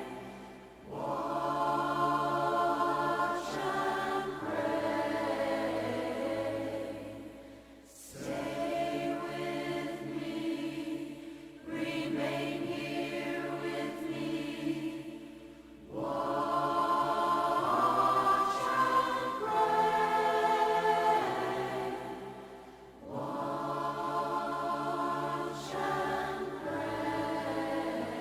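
A choir singing long held chords in phrases several seconds long, with brief pauses between them.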